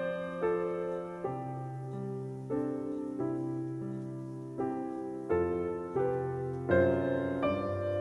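Slow background piano music, notes and chords struck about once a second and left to ring.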